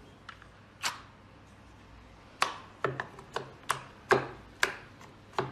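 Carved wooden blocks knocking as they are set down and pushed together on a table. There is one knock about a second in, then a run of about eight sharp knocks from a little before halfway, roughly two a second.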